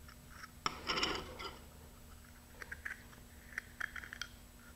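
X-Acto hobby knife blade scraping a burr off the edge of the hole in a fiberglass bulkhead disc: a longer scrape about a second in, then a run of short scrapes and clicks.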